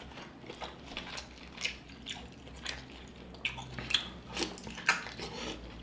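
Close-miked wet chewing and lip-smacking of a person eating sauce-coated seafood boil: a scattered run of soft clicks and squishes.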